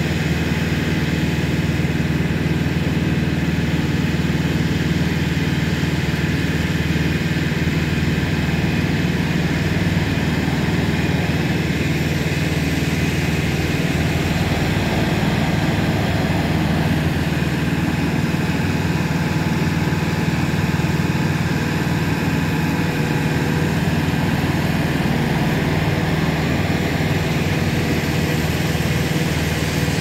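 Diesel engine of a Hidromek backhoe loader with about 32,000 hours on it, running steadily while the machine drives and works its front loader arm.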